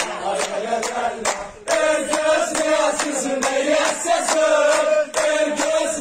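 A crowd of young men singing a chant together and clapping along in a steady rhythm, about four claps a second. The singing breaks off briefly about a second and a half in, then starts again.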